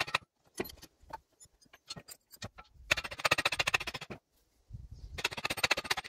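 Hammer tapping rapidly on the metal socket of a garden spade clamped in a vice, in quick runs of light strikes with a few single taps between them. The work secures the spade head onto its new wooden handle.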